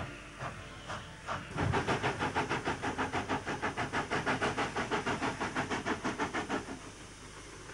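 Steam locomotive working, a quick, even run of exhaust chuffs at about six a second that comes in loud about a second and a half in and stops about a second before the end, leaving a quieter steady hiss.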